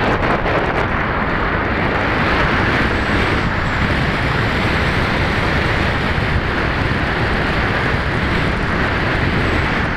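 Steady rush of wind buffeting the microphone of a camera mounted on a Max-Thrust Lightning 1500 RC glider as it glides low over the field on its landing approach.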